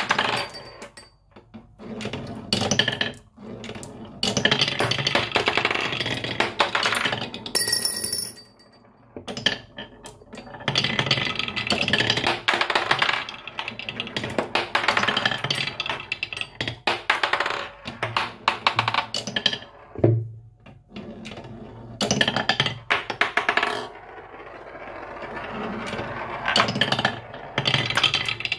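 Glass marbles rolling and rattling along wooden marble-run tracks and a wavy-grooved wooden slope, with sharp clicks and clacks as they strike the wood and drop from piece to piece, coming in stretches of several seconds with short pauses between.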